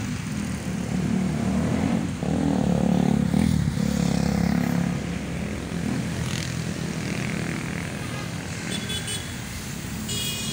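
Road traffic: the engines of passing vehicles, among them a small motorcycle, loudest a few seconds in and then easing off.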